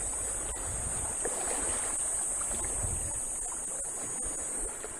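Shallow seawater lapping and trickling over rocks, with a steady low rumble underneath and a few faint clicks.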